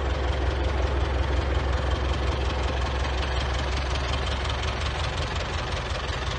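International 785 tractor's four-cylinder diesel engine idling steadily, with an even low pulse.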